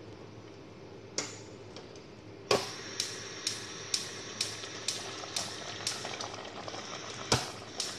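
A pot of soy-braised pork and eggs simmering, the thick sauce bubbling over a steady low hiss. From about two and a half seconds in, bubbles pop sharply at roughly two a second, one louder pop coming near the end.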